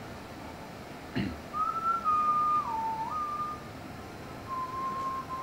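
A person whistling a tune, one clear note line stepping up and down in pitch, starting about a second and a half in, breaking off briefly and picking up again near the end. Under it runs the steady hiss of a Jetboil Sol gas stove's burner heating water.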